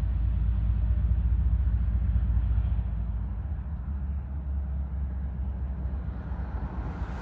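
Freight train's diesel locomotives running past, a steady low rumble.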